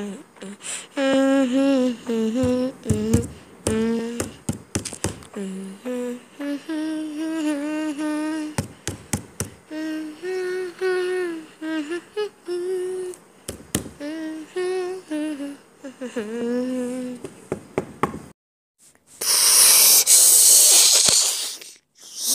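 A voice humming a slow, wordless melody in long, gliding held notes. Near the end the humming stops and a loud rushing noise of about two seconds takes over.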